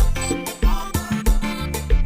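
Kompa groove played on a keyboard synthesizer: drum kit with a kick about twice a second, bass line and chords.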